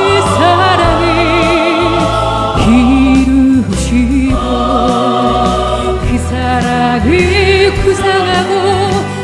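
Music: classical-style singing by a low and a high voice together, holding long notes with wide vibrato over a steady low accompaniment.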